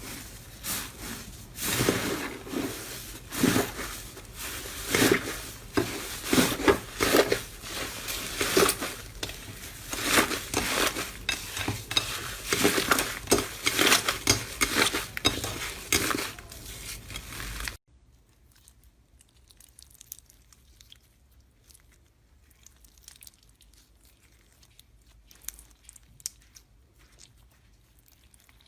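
Slime being squished and pressed by hand, making a dense run of crackles and pops. About 18 seconds in it cuts off suddenly to much fainter, scattered clicks.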